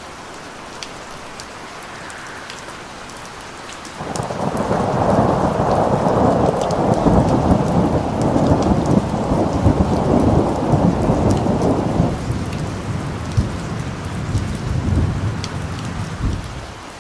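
Steady rain falling. About four seconds in, a loud rumble of thunder breaks in suddenly, holds for several seconds, then fades away.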